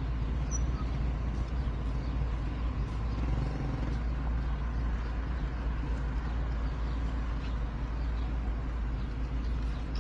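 A steady low rumble of outdoor noise with no distinct events.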